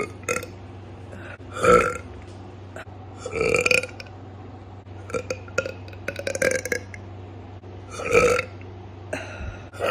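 A young woman burping loudly, about five times in a row, with short pauses between. One burp about halfway through is drawn out for a second or two. A steady low hum runs underneath.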